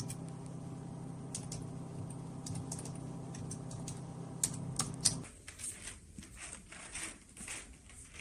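Typing on a computer keyboard: irregular key clicks over a steady low hum, which stops suddenly about five seconds in, after which softer clicks go on.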